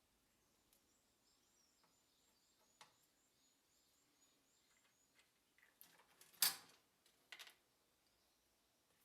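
Near silence with a faint high chirping trill of short repeated notes in the first half, then a few short knocks, the loudest about six and a half seconds in.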